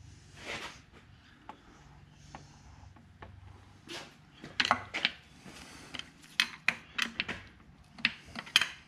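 Irregular sharp metallic clicks and clinks, starting about four seconds in, from a steel bar worked against the shift rails in the open shift opening of a Tremec T56 Magnum transmission, trying to move a gearbox that is stuck in gear.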